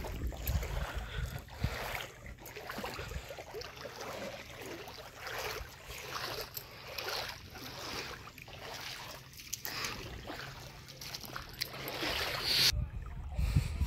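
Water splashing and sloshing in repeated short splashes, over a low rumble of wind on the microphone.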